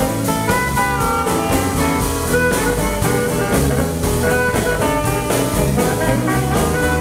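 Live blues band playing: an amplified harmonica solo over electric guitar, keyboard and a steady drum-kit beat.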